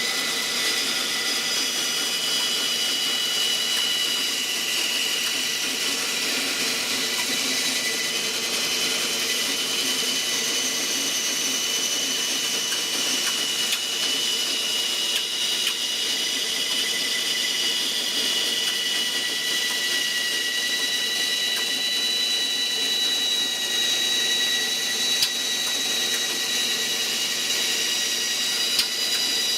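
Power saw running steadily with a high whine while cutting 2x4 scrap wood to width, with a couple of small clicks near the end.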